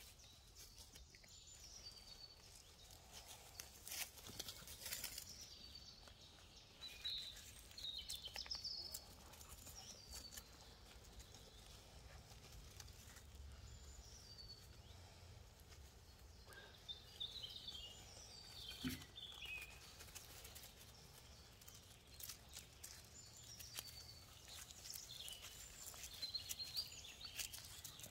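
Faint outdoor ambience of small birds chirping on and off, with scattered light rustles and clicks.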